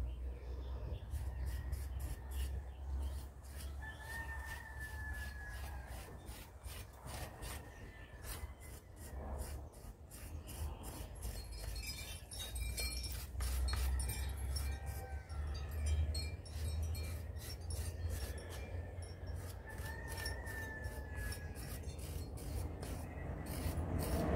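A potter's rib scraping excess slip off a leather-hard clay bowl in many short, quick strokes, uncovering the slip-inlaid decoration. A bird call, a slightly falling note, comes twice: a few seconds in and again near the end.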